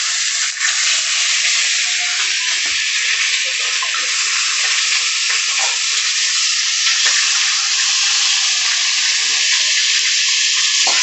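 Pieces of fish frying in hot oil in a wok: a steady, loud sizzle, with a few faint knocks.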